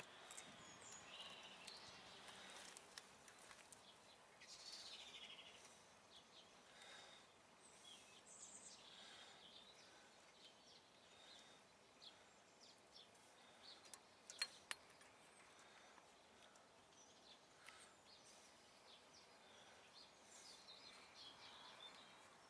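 Near silence with faint birdsong in the background. Two sharp clicks come close together about two-thirds of the way through.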